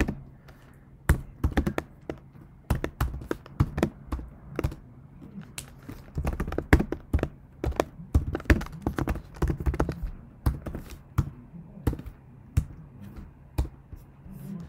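Computer keyboard typing in irregular bursts of key clicks with short pauses between them, over a faint low hum.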